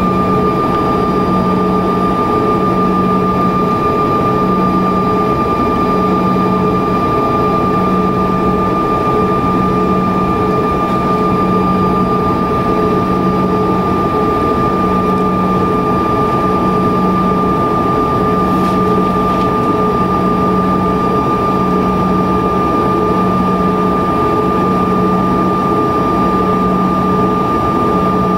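Cabin sound of a Bombardier CRJ-200 taxiing, its GE CF34 turbofans running at steady low power: a steady high whine over a broad engine drone, with a low hum that swells about once a second.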